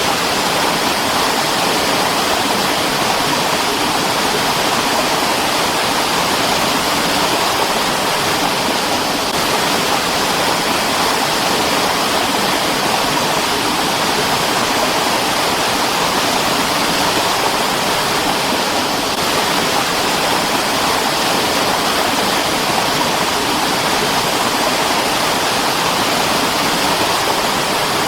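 Mountain stream rushing steadily over rocks: a dense, even water noise with no change.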